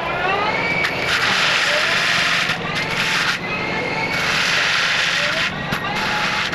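Takeuchi compact track loader with an FAE forestry mulcher head, running hard: two long bursts of loud grinding as the mulcher chews through wood and brush, with a rising whine between them over the steady engine drone.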